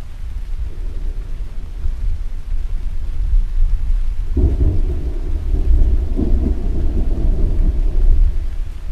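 Thunder rumbling deeply over steady rain, with a sudden louder peal about four seconds in that rolls on for several seconds before dying back to the low rumble.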